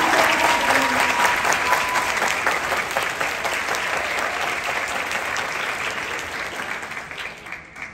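Audience applauding, many hands clapping, tapering off and dying away near the end.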